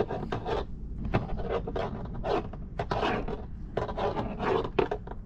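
Uneven run of short scraping and rubbing strokes as a small tool is pressed and twisted into a Teflon-lined AN hose end clamped in a bench vice, working the olive over the Teflon liner.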